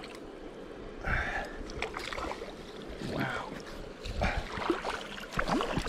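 Water splashing and sloshing in a shallow creek as a hooked trout is worked toward a landing net, over the steady rush of the stream.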